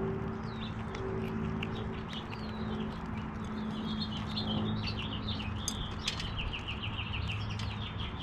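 Small birds chirping and twittering, with a quick run of repeated chirps near the end. Over a steady low hum come scattered sharp clicks from squirrels nibbling seeds and nuts at a feeder.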